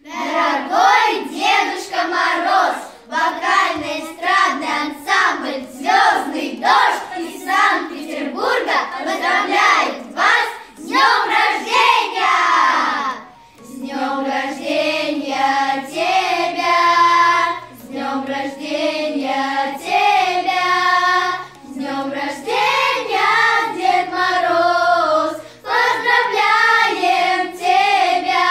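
Children's vocal ensemble singing together as a choir: a quick, rhythmic, choppy first half, then after a short break about halfway, slower, longer held notes.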